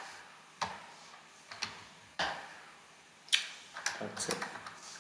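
Computer keyboard keystrokes: a few separate key clicks, then a quicker run of keys near the end.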